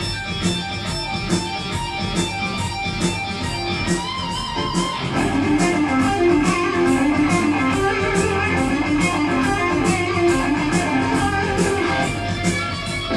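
Live heavy metal band playing an instrumental stretch: electric guitars over steady drum hits, getting louder with a busier guitar line about five seconds in.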